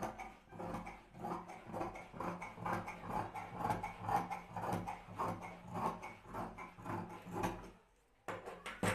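Tailor's scissors cutting through folded cloth in repeated snips, about two a second, stopping shortly before the end; then a single sharp clack.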